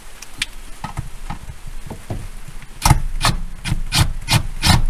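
Scattered light clicks, then from about three seconds in a run of sharp knocks, roughly three a second, as a hand tool works a gear-shift cable into a short shifter's cable mount.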